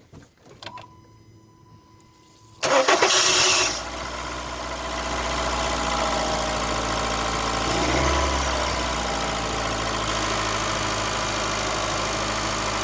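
A few faint clicks, then about three seconds in a Honda Fit's starter cranks for about a second and the engine catches on its first start after an oil service. It settles into a steady idle with a brief slight rise in speed near the middle; the owner's complaint on this car is a noisy timing chain.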